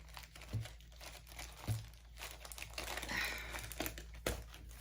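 Packaging crinkling and rustling as small items are unwrapped and handled, with a few light knocks in between.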